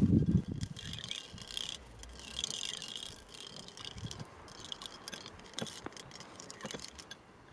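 A thin stick stirring liquid in a glass tumbler, clicking and scraping against the glass, after a dull knock at the very start. Insects chirp in several short bursts.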